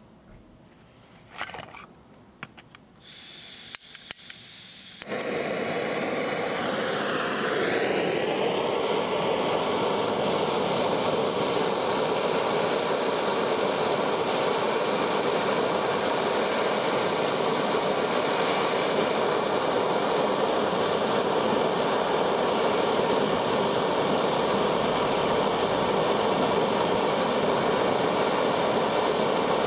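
Handheld canister gas blowtorch, lit about five seconds in after a few clicks and handling sounds, then burning with a steady hiss of flame; its tone dips and rises briefly soon after lighting.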